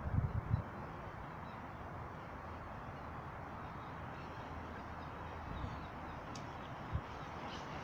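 Outdoor ambience with a steady hiss of wind on the microphone, and a few low buffeting thumps in the first half-second and again about seven seconds in.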